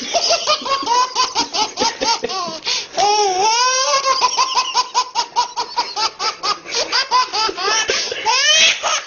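Baby girl belly-laughing hard in rapid bursts, several a second, with a longer drawn-out squealing laugh about three seconds in.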